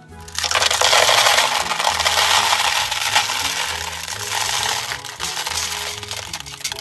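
Candy-coated chocolates (M&M's) poured from a bowl into a small plastic toy bathtub: a dense, continuous clattering rattle of many hard little candies landing. It starts about half a second in and lasts about six seconds.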